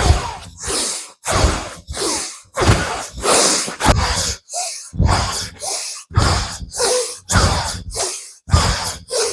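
Rapid, loud rhythmic breathing from a yoga arm-twist exercise: forceful exhales on the twist back alternating with inhales on the return to the front, nearly two breaths a second.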